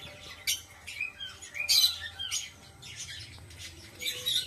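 Gouldian finches chirping: a series of short, sweeping calls, the loudest a little under two seconds in, with more calls near the end.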